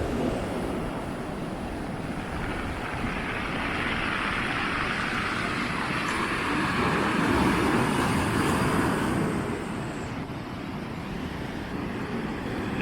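Outdoor beach ambience: a steady rush of surf and wind, with a broad rushing sound that builds a few seconds in and fades about ten seconds in.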